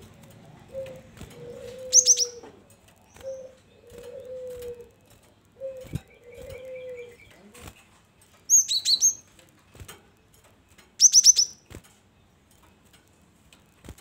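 Cinereous tit (gelatik batu) calling in three short bursts of quick, high-pitched chirps, about 2, 8.5 and 11 seconds in. Under them, in the first half, a low falling coo repeats four times, and a few soft knocks come from the bird moving on its perches.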